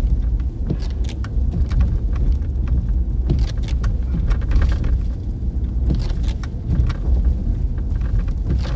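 Car cabin noise on a shaky, bumpy road: a steady deep rumble from the tyres and engine, with scattered small clicks and rattles as the car jolts over the bumps.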